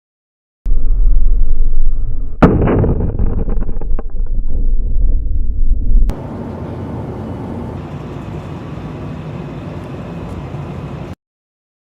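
A heavy low rumble with one sharp bang about two and a half seconds in, followed by an abrupt change to a quieter, steady rushing noise that cuts off suddenly near the end.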